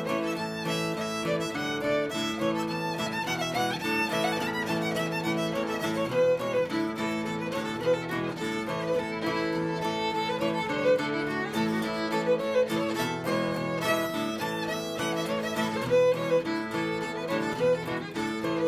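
Old-time Appalachian fiddle music: a fiddle bowing a tune in a steady run of notes.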